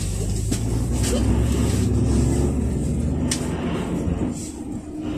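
Cabin noise inside a moving GAZelle Next minibus: its Evotech 2.7-litre engine running on LPG under a low road rumble, with a few sharp rattling clicks. The rumble dips briefly near the end.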